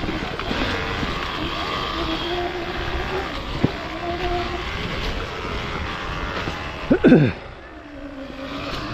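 A vehicle's motor running steadily over rough ground, with a sharp knock about three and a half seconds in and a brief gliding sound near seven seconds.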